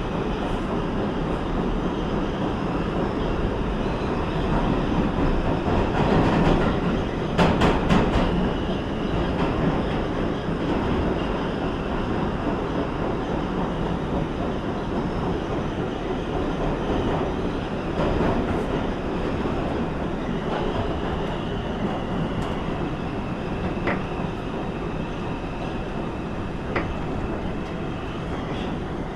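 New York City subway 5 express train running between stations, heard from inside the car: a steady rumble of wheels on rails, with a short burst of clattering clicks about seven seconds in and a faint high whine in the last third.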